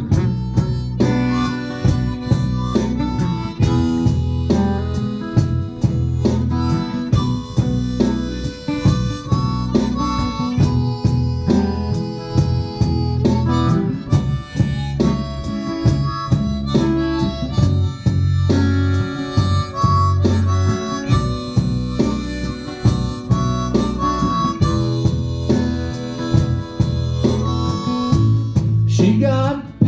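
Blues harmonica solo, played with hands cupped around the harp against a vocal microphone, over electric guitar accompaniment with a steady beat and a repeating bass line.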